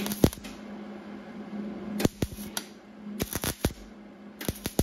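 MIG welder tack-welding sheet steel at the edge of a car hood: short crackling arc bursts, one at a time and in quick clusters about three and a half seconds in and near the end, over a steady low hum.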